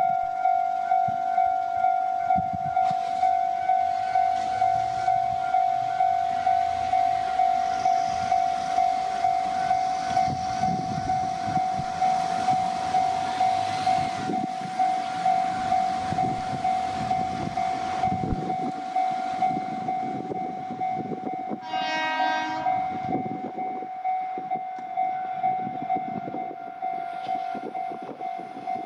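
Japanese level-crossing warning bell ringing steadily, about one and a half beats a second, while a train passes with a rumble of wheels on rail. About three quarters of the way through, the train sounds one short horn blast.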